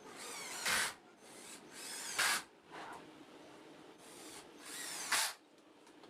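Power drill run in three short bursts, each a rising whine that ends in a brief loud burst.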